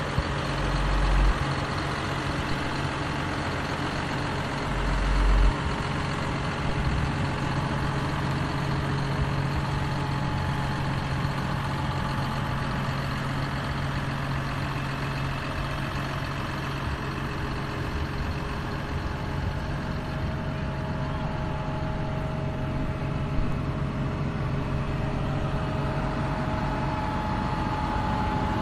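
Steady engine idling sound like a heavy vehicle's, an even hum without change, with two low thumps about a second and about five seconds in.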